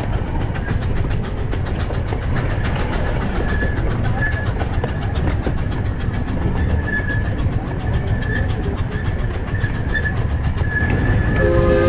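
Miniature steam train running, a steady rumble with fast, even clatter from the wheels and track. Near the end a multi-tone steam whistle starts blowing.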